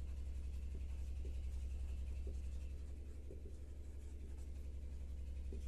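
Marker pen writing on a whiteboard: short strokes of the felt tip rubbing across the board, heard faintly over a steady low hum.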